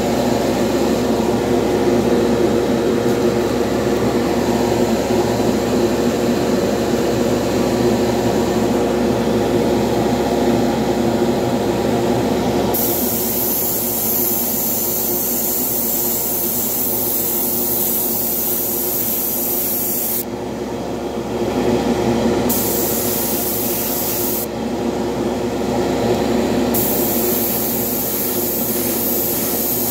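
A steady fan hum runs throughout. From about 13 seconds in, an airbrush sprays paint in three long hisses with two short breaks.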